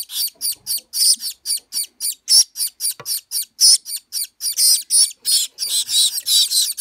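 Gouldian finch nestlings begging for food: a fast, unbroken series of shrill, high-pitched squeaks, about six a second, from a hungry brood.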